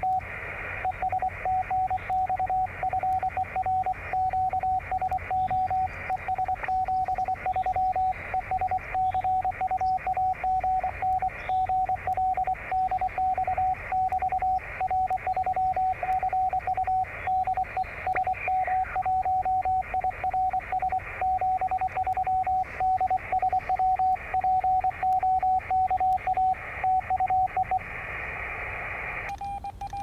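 Morse code (CW) from another amateur station received on an HF transceiver: a steady mid-pitched beep keyed on and off in dots and dashes over receiver hiss. The signal is strong, a 599 report. Near the end the keying stops and about a second of plain receiver hiss remains before it cuts off.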